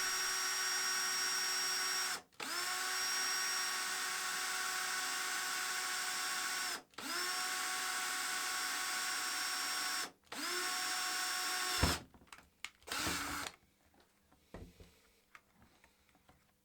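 Power drill boring a 7 mm hole through the plastic case of a Spektrum DX6i transmitter, running steadily in four bursts with short stops between, each start rising briefly in pitch as the motor spins up. It stops about twelve seconds in, followed by a few light knocks.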